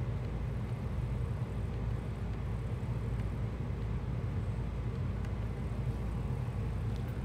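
Steady low background hum, unchanging throughout, with no distinct strokes or events over it.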